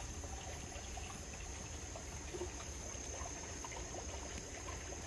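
Steady, high-pitched drone of insects chirring, over a low rumble.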